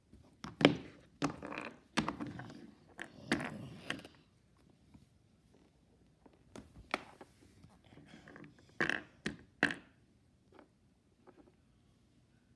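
Plastic toy animal figures knocking against a hardwood floor as they are moved by hand: irregular sharp knocks, a cluster in the first few seconds, one near the middle and a few more toward the end.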